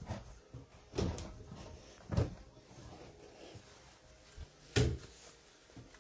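Sealed cardboard hobby boxes being handled and set down on a table: three dull thumps, about a second in, about two seconds in and near the end.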